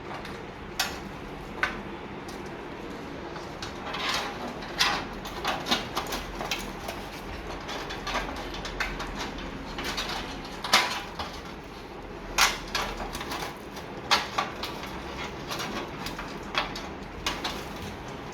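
Irregular clicks, knocks and light clattering of a PC cabinet's panels and parts being handled, scattered through the stretch with no steady rhythm.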